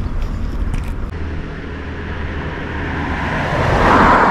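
A car passing by on the road: its tyre and engine noise grows steadily louder, peaks near the end, and drops sharply in pitch as it goes past.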